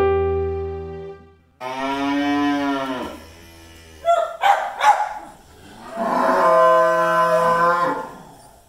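Soft piano music fades out about a second and a half in, then cattle in a pen moo: one long moo that drops in pitch at its end, a few short sharp sounds midway, and a second long moo near the end.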